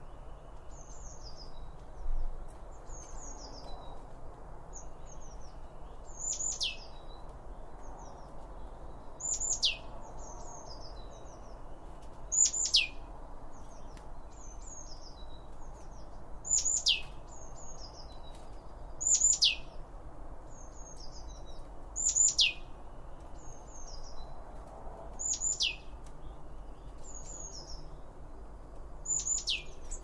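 Small garden songbirds calling. A loud, sharply downward-sweeping whistle repeats about every three seconds, with softer, shorter chirps in between, over a steady background hiss.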